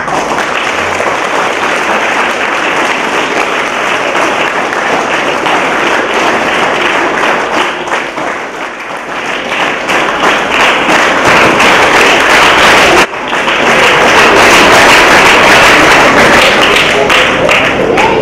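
Audience applauding, a sustained round of clapping that breaks off for an instant about thirteen seconds in and then comes back louder.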